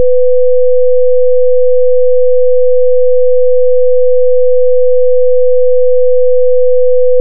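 A steady, loud 500 Hz pure tone from the PhET Sound simulation's speaker, generated by the computer at full amplitude.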